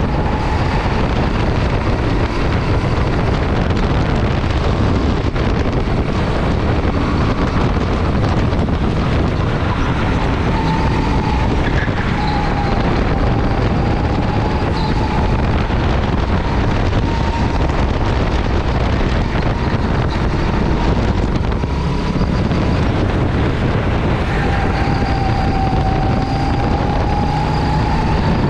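Go-kart engine running continuously at track speed, with a thin whine that drifts slightly up and down in pitch, under heavy wind noise on the onboard microphone.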